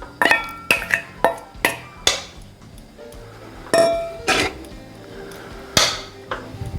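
Background music of plucked notes.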